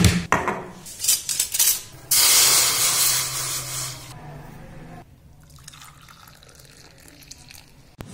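Water poured from a jug into an aluminium cooking pot: a steady splashing pour that begins about two seconds in, lasts about two seconds and then tails off. It is preceded by a sharp knock at the very start and some clattering of handling.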